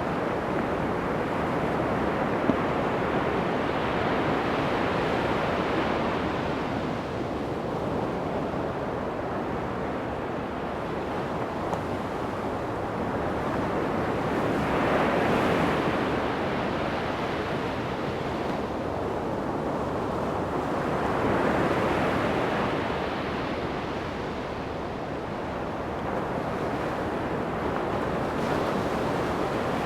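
Ocean surf breaking on a sandy beach, a steady wash that swells and ebbs slowly as waves break, with the biggest surges about halfway through and again some seconds later. Some wind on the microphone.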